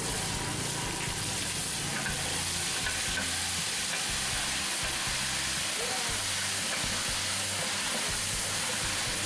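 Oil and onions sizzling loudly in a large aluminium cooking pot; the sizzle starts suddenly as liquid is poured into the hot oil and holds steady.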